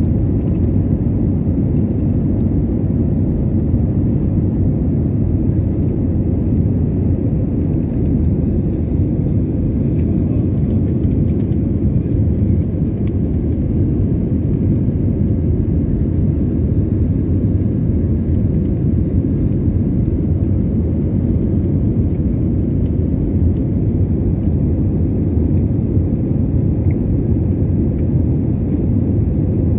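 Jet airliner cabin noise during the climb after takeoff: a steady, low rumble of engines and rushing air, heard from inside the cabin.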